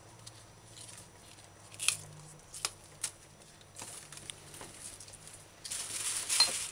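Hands tearing the dying outer leaves off scallions, with a few light ticks and rustles of a plastic bag. A louder crinkling rustle comes near the end.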